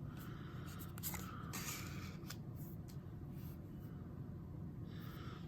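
Trading cards being handled: soft sliding and rustling with a few light clicks, mostly in the first half, over a low steady hum.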